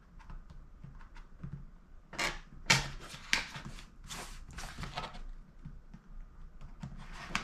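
Packaging being opened by hand: a string of short rustles and scrapes of cardboard and plastic, clustered between about two and five seconds in.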